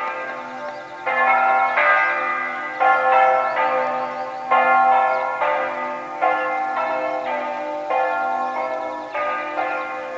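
Church bells ringing a festive peal: bells struck one after another, about once a second, each ringing on and overlapping the next.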